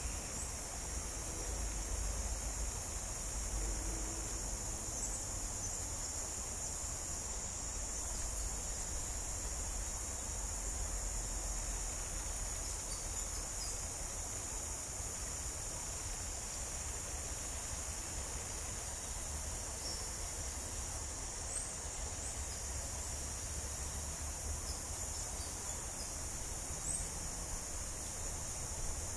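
Steady high-pitched insect chorus, one unbroken drone, with a low rumble underneath.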